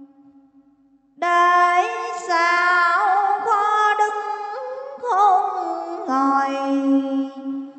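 A woman singing a slow melody in long phrases with gliding, wavering pitch, over a held low note. It starts about a second in, after a brief near-quiet pause.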